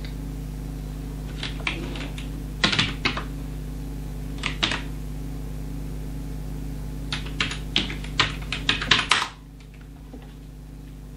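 Typing on a computer keyboard: a few scattered keystrokes, then a quick run of keystrokes about seven seconds in, over a steady low hum that drops away near the end.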